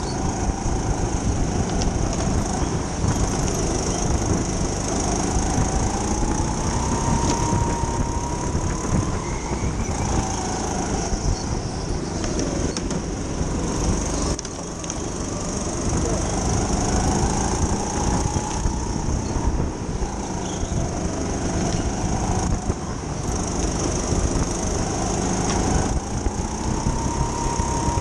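Racing go-kart running hard around an indoor track, its motor pitch climbing for several seconds at a time and then dropping back, a few times over, as it accelerates and slows through the lap.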